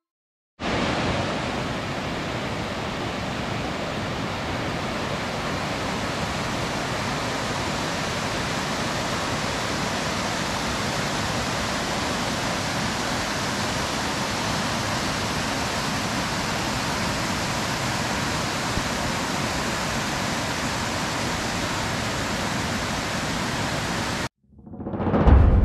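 Steady, even rush of flowing water, starting abruptly just after the start and cutting off suddenly near the end.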